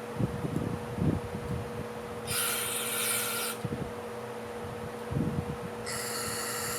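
Two hissing spray blasts, each a little over a second long, aimed at carburetor parts during cleaning, with knocks and clinks of the parts being handled before each and a faint steady hum underneath.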